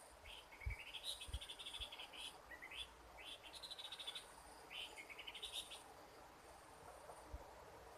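Faint series of short, rapid chirping trills from a forest animal, some rising in pitch, repeating through the first six seconds or so, over a steady high insect hiss.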